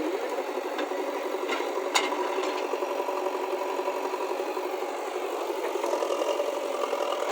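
A motor running steadily with a fine rattle, and a sharp click about two seconds in.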